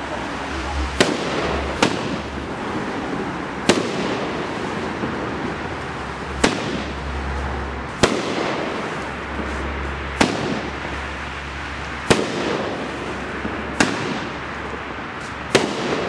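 Dominator 'Haunted Fish' 38-shot 500 g consumer firework cake firing: nine sharp bangs at uneven intervals of one to three seconds, over a continuous hiss between them.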